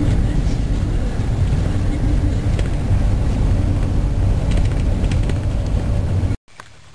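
Steady engine and road rumble heard from inside a moving vehicle. It cuts off abruptly about six seconds in, giving way to a much quieter background.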